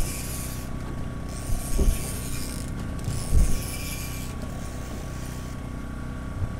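Fishing reel being cranked in spurts, about a second at a time, while a fish is pumped up on a bent rod, over the steady hum of an idling outboard motor. A few dull thumps come through.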